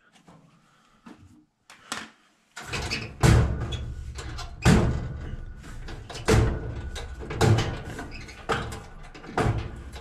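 Hands working at a clothes dryer's heating element and its sheet-metal housing, pulling the wire connectors off. After a quiet first couple of seconds comes a run of knocks and clicks with metallic rattling and handling noise.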